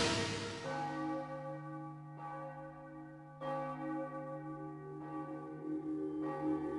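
A church bell tolling slowly. There are about four strokes over several seconds, each one ringing on with many steady overtones.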